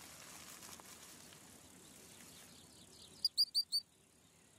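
Faint outdoor background hiss, then short, high, sharp chirping calls: a quick run of four about three seconds in, and three more at the end.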